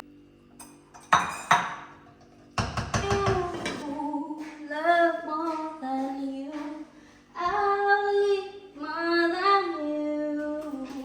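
Two sharp knocks about a second in and a brief clatter, then a woman singing a melody unaccompanied in a few drawn-out phrases.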